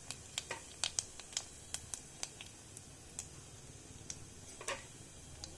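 Cumin seeds crackling in hot oil in a pan: irregular sharp pops, thick for the first two seconds or so, then sparser, with one longer crackle near the end. The crackle shows the oil is hot enough for the tempering.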